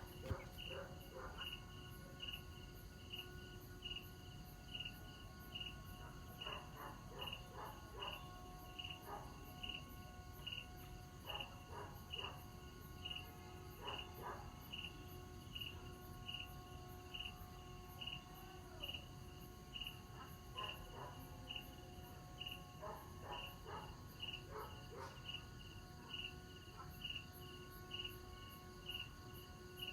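Vietnamese kite flute (sáo diều) of the train-whistle kind sounding a steady, unbroken chord of several tones in the wind. Crickets chirp in a regular pulse, about three chirps every two seconds.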